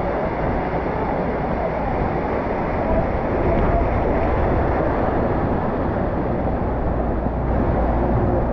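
Water from a rock waterfall pouring and splashing steadily into a pool.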